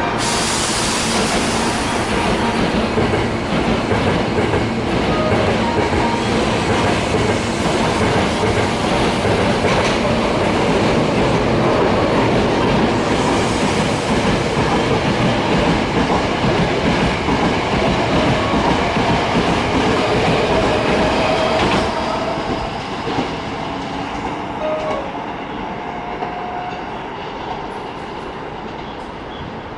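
Hankyu electric train passing close by, its wheels clattering over the joints of old standard-length jointed rail. Loud until about 22 seconds in, then fading away.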